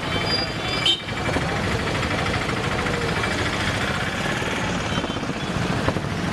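A heavy vehicle's engine running steadily under the noise of a busy street, with a short knock about a second in.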